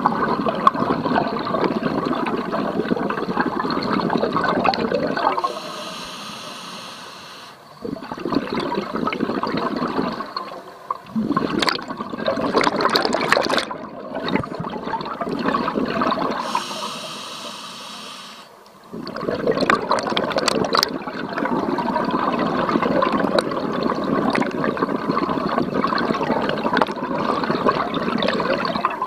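Scuba diver breathing through a regulator underwater: long rushes of exhaled bubbles, broken twice by a quieter, hissing inhale, about six seconds in and again about seventeen seconds in.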